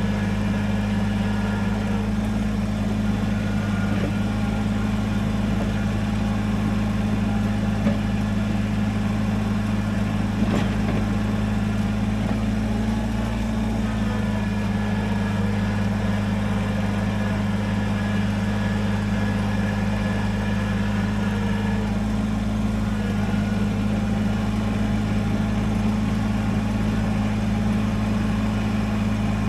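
Kubota BX23S compact tractor's three-cylinder diesel engine running steadily at an even speed, with a brief knock about ten seconds in.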